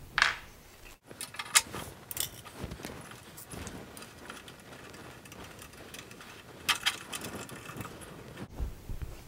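Scattered light clicks and metal clinks of hand assembly: a bandsaw's upper table trunnion being fitted onto the lower trunnion and fastened with a thumb screw.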